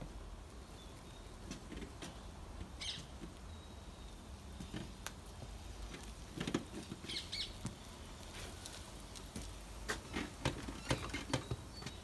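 Scattered footsteps, clicks and light knocks as a motorcycle is pushed across a concrete driveway and mounted, over a low steady background rumble. The knocks come thicker around the middle and again near the end.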